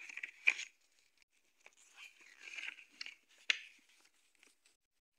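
Glossy paper pages of a CD booklet being flipped through by hand and rustling, with two sharp snaps of a page, about half a second in and about three and a half seconds in.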